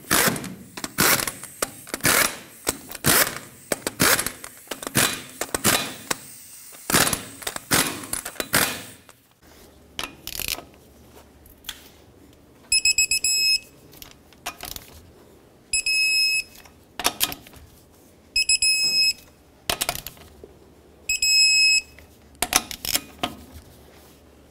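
Ratchet clicking in quick runs as the lug nuts are snugged down. Then a torque wrench tightens each nut in turn, and its electronic beep sounds four times, about a second each and a couple of seconds apart, as each nut reaches the 150 foot-pound setting.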